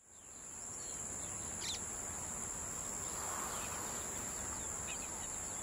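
Forest ambience: a steady high-pitched insect drone that fades in at the start, with a few faint bird chirps, the clearest about a second and a half in.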